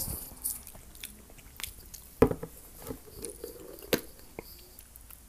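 Close-miked chewing of crunchy Hot Cheetos, with sharp clicks and knocks as a plastic jar of Tostitos cheese dip is handled and its lid unscrewed. The loudest knock comes a little over two seconds in.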